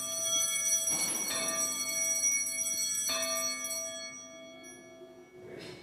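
Altar bell rung at the elevation of the chalice. It is struck again about a second in and about three seconds in, each strike ringing on with several clear high tones, and it fades out near the end.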